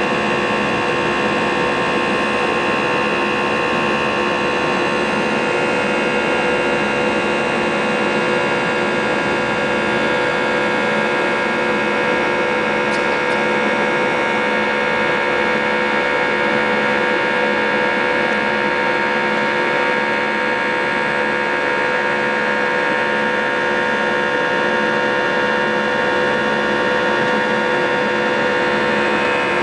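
Airbus A321's CFM56-5B engines heard from inside the cabin during the climb after takeoff: a steady, loud drone made of many held tones.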